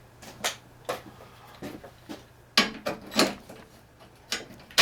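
Hand tools and loose parts clicking and knocking while a snowblower is being taken apart: a handful of irregular, short clicks, the loudest about two and a half and three seconds in.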